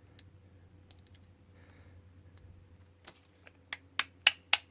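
Sharp small clicks and taps of metal being handled on a workbench, a few faint ticks at first, then a quickening run of louder clicks about three a second near the end.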